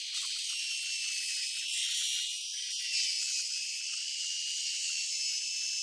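Hercules 10-inch compact table saw ripping a spruce 2x4, the audio sped up with the footage: a thin, steady high-pitched hiss with a faint wavering whine and no low end.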